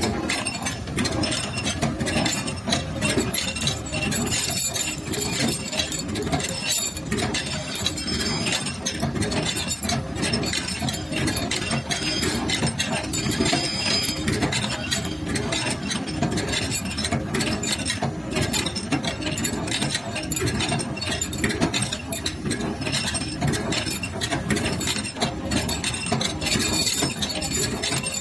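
Automatic L-bolt (anchor bolt) bending machine running continuously: a dense, steady metallic clatter with constant clinking of steel rods and bent bolts knocking against each other.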